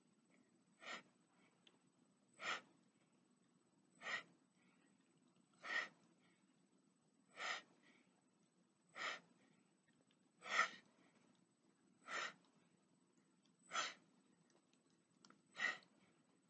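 A man's sharp breaths out, one with each push-up on his knees: ten short puffs, evenly spaced about a second and a half apart.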